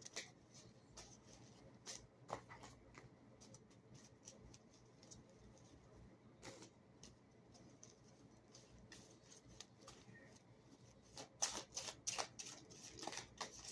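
Quiet handling of a deck of cards: soft scattered clicks and rustles, then a denser run of card shuffling near the end.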